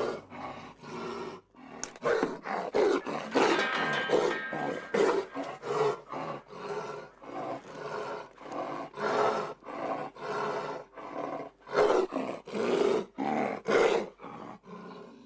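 Young Siberian tiger cub growling and snarling in a rapid string of short, harsh roars, about one or two a second, fading near the end. It is the agitated, defensive snarling of a caged cub at people working at its bars.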